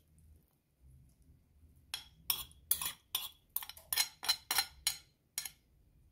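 A metal spoon scraping and clinking against a ceramic bowl, about a dozen quick strokes starting about two seconds in, as carrot topping is scraped out of the bowl.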